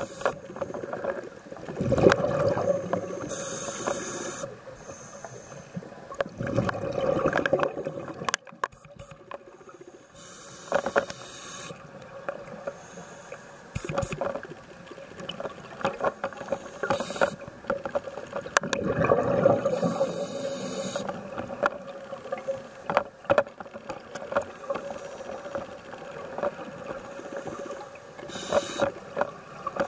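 Scuba breathing underwater through a demand regulator: hissing inhalations alternating with bubbling, gurgling exhalations, a breath every several seconds, with a few scattered clicks.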